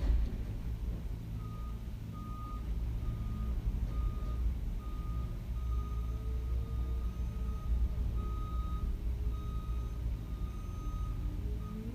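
Radio broadcast audio in a failed Emergency Alert System test. There is a steady low hum, and from about a second and a half in a string of short, high electronic beeps, unevenly long, roughly one every half second or so, stopping near the end.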